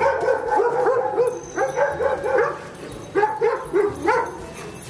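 Dogs barking at a moose that is charging them, in quick runs of short, high barks with brief gaps between the runs.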